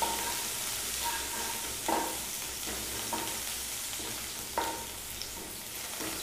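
Green chillies and cumin seeds sizzling in hot oil in a kadhai, with a steady hiss. A spatula stirs and scrapes the pan every second or so, the sharpest strokes about two and four and a half seconds in.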